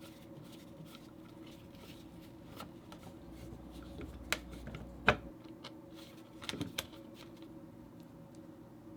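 Scattered light clicks and taps of small tools and parts being handled while working on a sewing machine motor, over a faint steady hum. The sharpest taps come about four and five seconds in, with a quick pair a little later.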